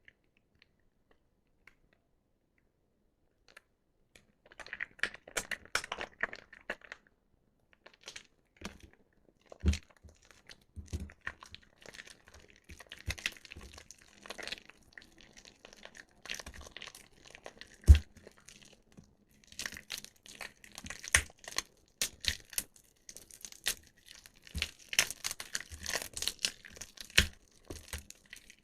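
Soaked bar soap squeezed and crumbled by hand, crackling and squelching in irregular bursts that begin about four seconds in. Occasional dull thumps, the loudest about two-thirds of the way through, and denser crackling near the end.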